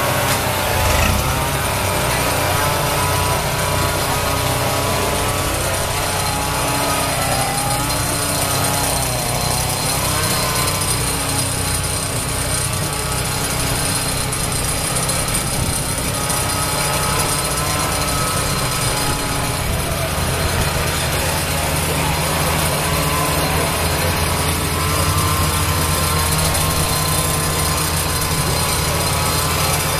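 Chainsaw engines running steadily, their whine rising and falling over a constant low engine hum.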